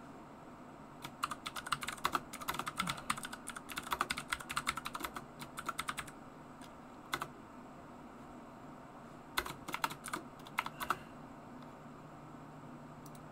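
Typing on a computer keyboard: a run of rapid keystrokes lasting about five seconds, a single keystroke, then a second, shorter run.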